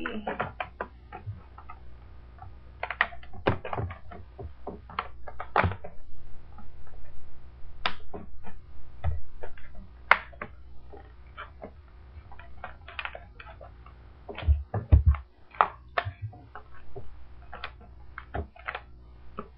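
Hard plastic clamshell packaging being pried and bent open by hand: scattered crackles and clicks, with a few heavier thumps about fifteen seconds in.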